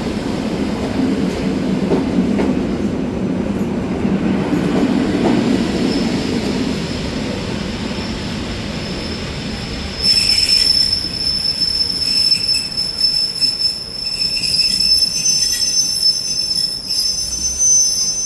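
Train moving through a station: a low rumble that slowly fades, then from about ten seconds in a steady high-pitched wheel squeal as the train slows. The sound cuts off suddenly at the end.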